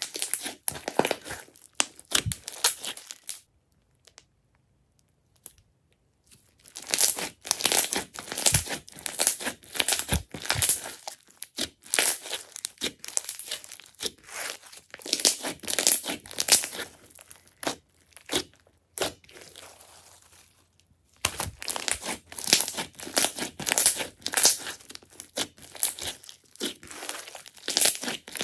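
Hands squeezing, poking and pressing a large lump of glossy slime, giving dense sticky crackling and popping. The sound comes in bouts, with a pause of a few seconds early on and another a little past the middle.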